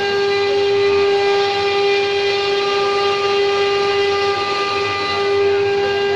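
Spindle of an MY6090 stone-engraving CNC router running with a loud, steady high-pitched whine while its cutter engraves a stone slab.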